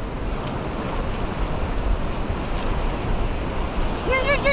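Ocean surf breaking and washing up a sandy beach, with wind buffeting the microphone. Near the end comes a quick run of about five short pitched calls.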